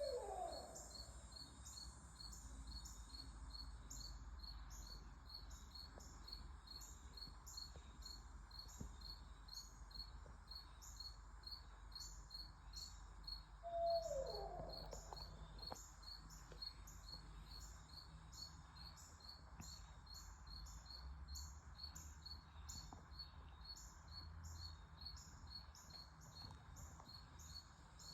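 An unidentified animal gives one call about 14 seconds in, holding a pitch briefly and then falling. Behind it, insects chirp steadily in a fast, even rhythm.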